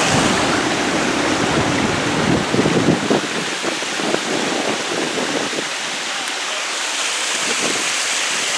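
Steady rush of water from an artificial waterfall or stream on a mini golf course. Wind rumbles on the microphone for about the first three seconds, then drops away.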